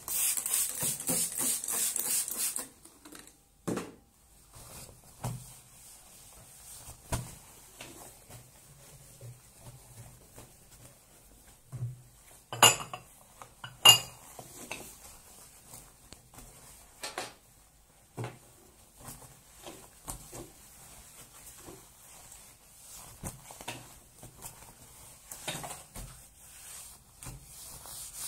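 Hands in rubber gloves cleaning a bathroom: a spray bottle squirted rapidly over the first couple of seconds, then scattered knocks and rubbing as the stone counter is wiped and items are handled. Around the middle come two sharp, ringing clinks about a second apart, as hard items are set down on the counter.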